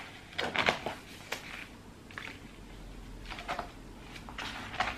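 Rustling and scraping of a hardback book being slid against its clear plastic sleeve and card packaging, a handful of short rustles a second or so apart.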